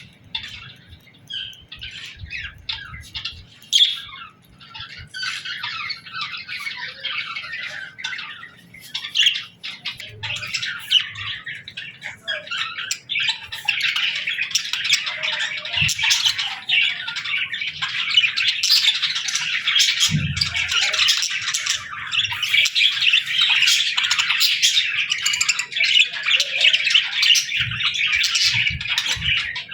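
Several budgerigars (pet parakeets) chirping, warbling and squawking together: scattered calls at first, then a dense, continuous chatter from about halfway through.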